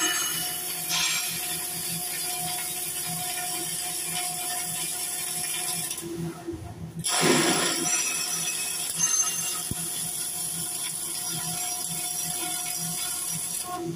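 Electric arc welding: the arc crackles and hisses steadily on steel, stops briefly a little past halfway, then strikes again and runs on.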